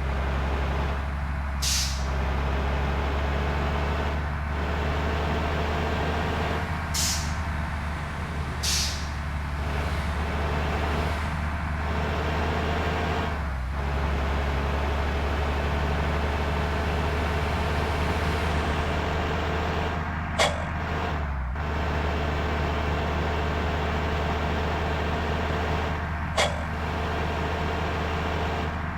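Large bus diesel engine running steadily, likely idling in stop-and-go traffic. Several short air-brake hisses cut in during the first ten seconds, with two sharp clicks later on.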